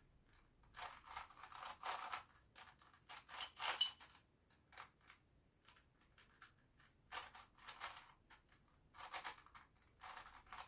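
Grilles II cube, a plastic twisty puzzle, being turned by hand: faint runs of quick clicking and clacking as its layers turn, in several short bursts with pauses between.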